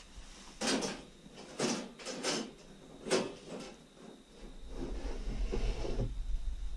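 A groundhog moving inside a wire cage live trap: four short, noisy bursts about a second apart. Fainter rustling follows, and a low rumble comes up about two thirds of the way in.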